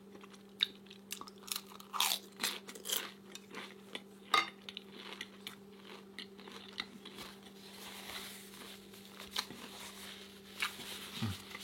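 Close-up crunching and chewing of a crispy fried egg roll, with irregular sharp crackles that thin out after about four seconds into softer chewing, over a steady low hum.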